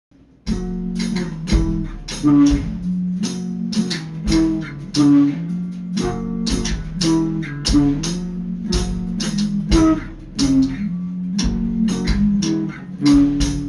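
Background music starting about half a second in: a guitar-led track with bass and a steady drum beat.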